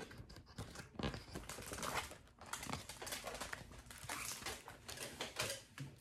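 Pages of a large picture book being turned and handled: paper rustling and crackling with many small ticks and taps.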